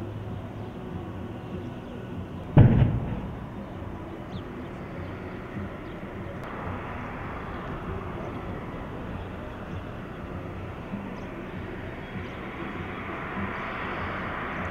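A single loud explosive blast about two and a half seconds in, its low boom dying away within half a second. Underneath is a steady outdoor rumble of vehicle engines.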